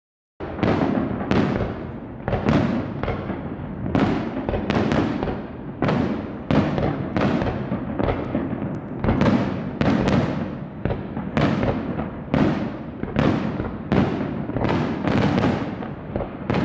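Fireworks going off in a rapid, even series of bangs, about one and a half a second, each trailing off before the next. They start suddenly about half a second in.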